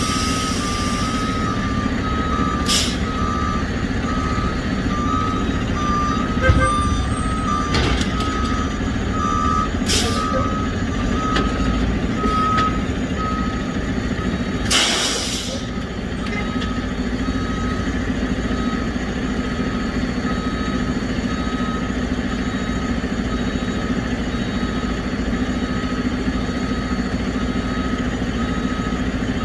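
Heavy diesel hooklift truck running with its backup alarm beeping steadily, a short high beep repeating every fraction of a second. Short bursts of air hiss come about three, ten and fifteen seconds in, the last the longest.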